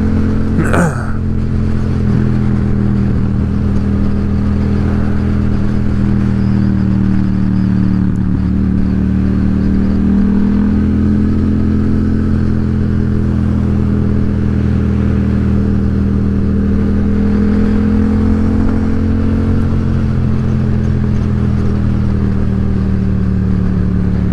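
Yamaha XSR700's parallel-twin engine running at a steady cruise, its pitch drifting only slightly, with a low road and wind rumble. A brief sharp click about a second in.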